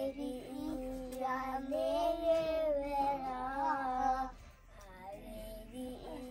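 A young girl singing a song, holding long notes, going quieter for a moment a little past four seconds in.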